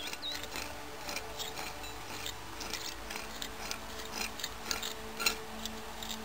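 Metal hand trowel scraping and clicking against packed soil and small stones: a run of short, irregular scrapes.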